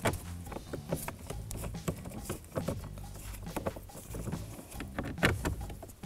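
Hands and a ratchet working the kick panel's mounting bolts into the dash: a run of irregular small clicks and taps, with a couple of sharper knocks about a second in and about five seconds in.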